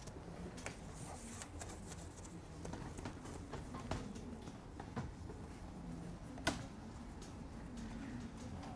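Faint scattered clicks of laptop keys and a mouse over a low room hum, with one sharper click about two-thirds of the way through.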